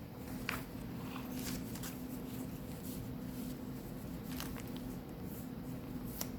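Paper pages of a handmade junk journal being turned and handled, with scattered rustles and soft taps, over a steady low hum.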